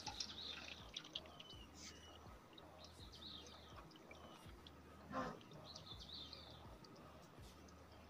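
Faint bird chirps in the background, short high calls now and then, over near-silent room tone. There is one brief soft handling sound about five seconds in.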